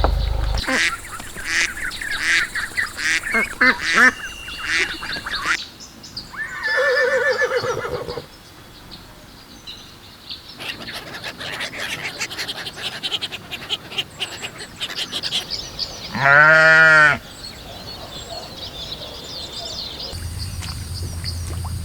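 Ducks and geese calling: runs of quacking and honking, with one loud, drawn-out call about sixteen seconds in.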